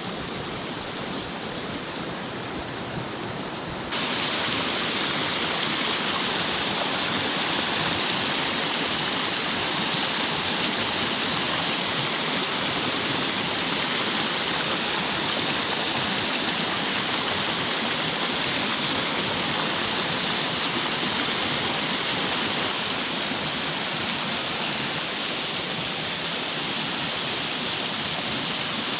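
Small rocky mountain stream rushing over stones and little cascades, a steady water noise that steps up abruptly about four seconds in.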